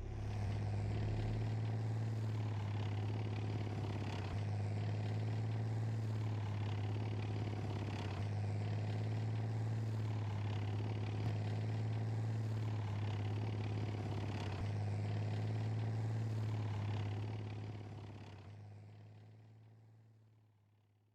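Cartoon vehicle engine sound effect: a steady low engine hum that fades away over the last few seconds.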